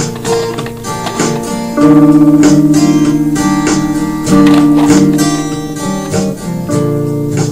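Surf-rock instrumental music led by strummed guitar, with a steady beat; it gets louder about two seconds in.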